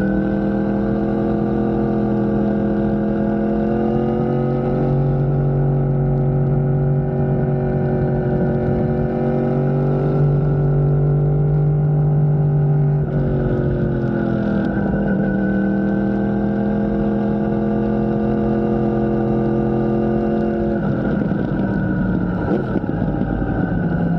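A motor running steadily, its pitch drifting slowly up and down, with a shift in speed about halfway through and again near the end.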